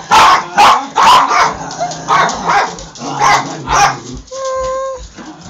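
Small dogs barking repeatedly, about ten short sharp barks in the first four seconds, followed by a brief steady high squeal of about half a second.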